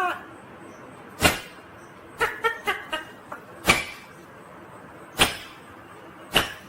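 Ringneck parrot giving four short, sharp sounds spread across a few seconds, with a quick run of short pitched notes about two seconds in.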